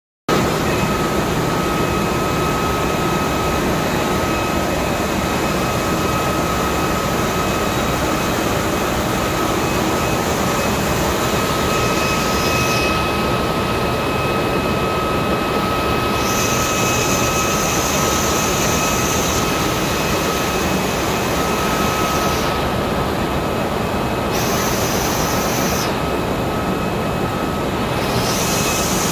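Ship's engine-room machinery running: a loud, steady drone with a constant high-pitched whine on top of it.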